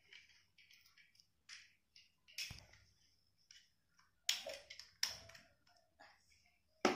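Scattered light clicks and taps of plastic toy pieces being handled on a toy ice cream cart, with a few louder knocks about two and a half, four and five seconds in.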